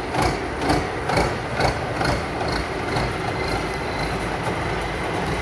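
Combine harvester running, its engine humming steadily under a rhythmic metallic clatter about twice a second that fades after about three seconds.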